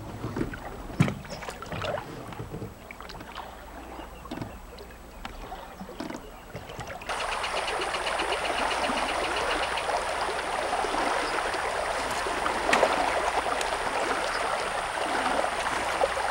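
Fast-flowing stream rushing steadily over a shallow bed, coming in suddenly about seven seconds in. Before that, only scattered light knocks and small splashes.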